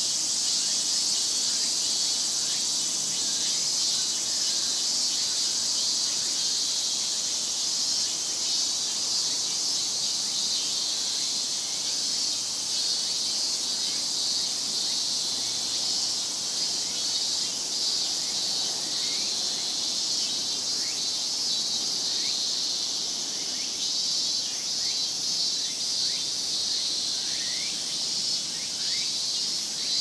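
Dense chorus of Japanese cicadas: a continuous, high-pitched shrill buzz with a pulsing, throbbing layer, and short sliding chirps over it that grow more frequent in the second half.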